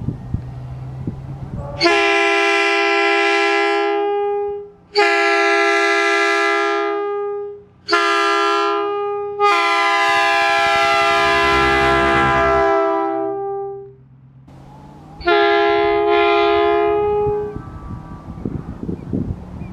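P2 locomotive air horn mounted on an SUV's roof rack, sounding a chord of two steady low notes in the crossing pattern: long, long, short, long. The last note tails off, and after a pause a fifth blast sounds with a brief break in it.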